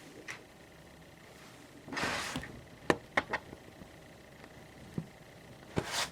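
Handling noises as a plastic lighting gel is fitted onto a ring light: a short rustle about two seconds in, a quick run of sharp clicks and taps around three seconds, another click at five seconds and a second rustle near the end.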